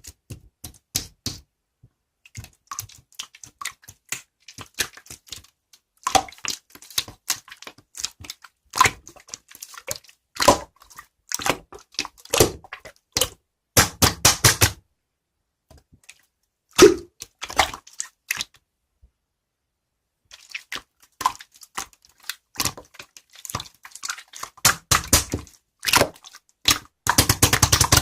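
Clear crystal slime being worked by hand, making wet, sticky clicks and crackles in irregular clusters, with faster runs of crackling about halfway through and near the end.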